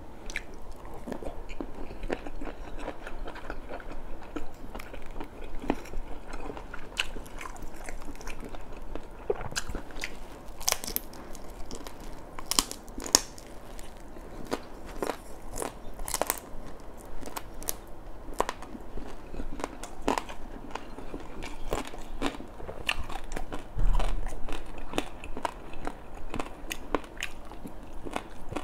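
Close-up chewing of fried red tilapia, with many short crisp crunches and wet mouth sounds. A dull low thump about 24 seconds in.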